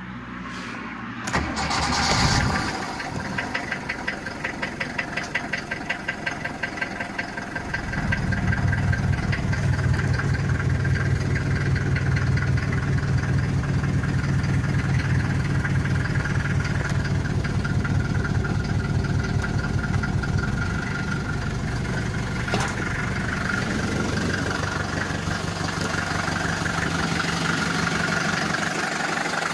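Mercedes-Benz 200D (W115) four-cylinder diesel engine being started: the starter cranks briefly, the engine catches about two seconds in and settles into a rhythmic diesel clatter at idle. From about eight seconds in it runs louder and deeper.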